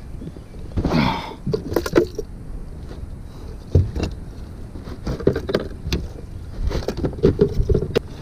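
Irregular knocks and clatters on a plastic kayak deck as a freshly landed bass is handled and unhooked, the fish and the lure's hooks rattling against the deck. The clatter comes thicker in the last few seconds, with a short falling sweep about a second in.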